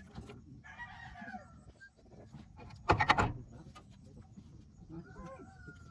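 Chickens calling: a rough clucking call about a second in, a loud short squawk about three seconds in, and a falling call near the end.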